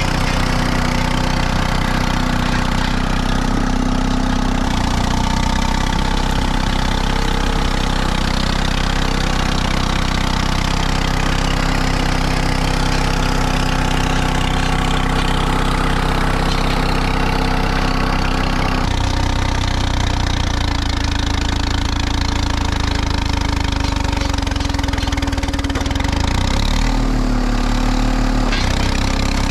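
Allis-Chalmers HD5 bulldozer's Detroit Diesel 2-71, a two-cylinder two-stroke diesel, running steadily under load as the dozer works through brush. Its note changes about 5 seconds in and again about 19 seconds in.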